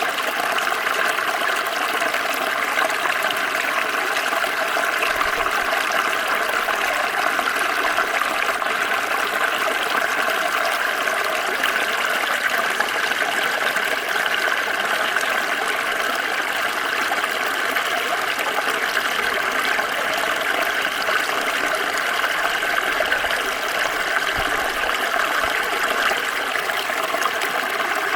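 Small stream of water flowing and trickling steadily, an even rushing sound with no change.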